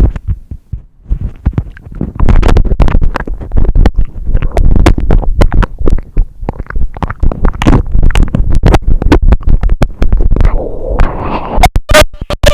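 Microphone being mouthed and chewed right on the capsule: a dense run of loud clicks, knocks and low rumbling thumps, clipping at the peaks. Near the end a pitched vocal hum or groan comes in over it.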